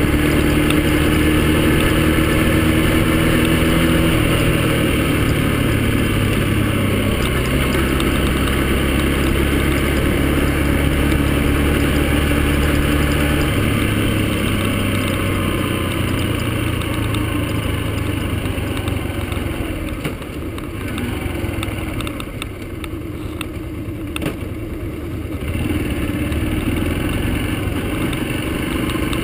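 Yamaha XTZ125 motorcycle's single-cylinder four-stroke engine running under way, its pitch holding steady and stepping down a few times. It eases off and gets quieter for a few seconds past the middle, then picks up again near the end.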